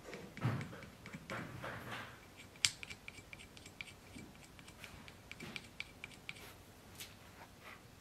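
Light clicks, taps and scrapes of a small metal scabbard fitting being handled and worked by hand, with one sharper click a little before the middle.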